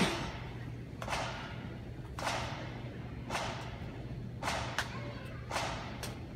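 Sharp, echoing strikes at an even pace of about one a second, keeping time for a contingent marching in step across a large arena floor.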